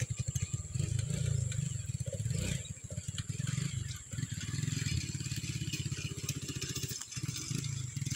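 A small engine running steadily, a rapid low putter.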